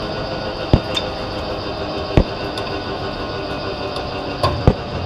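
Jet truck's turbine engine running steadily at idle with a constant-pitched whine, broken by four sharp knocks at irregular intervals.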